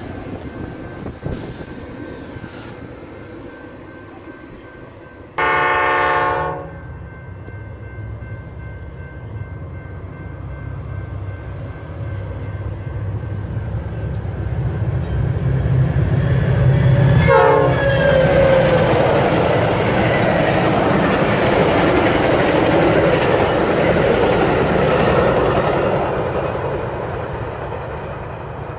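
Metra commuter train sounds: a train horn blows once, a loud chord lasting about a second, some five seconds in. Then a passing train's rumble and wheel-on-rail noise build from about twelve seconds in, stay loud through the middle and ease off over the last few seconds.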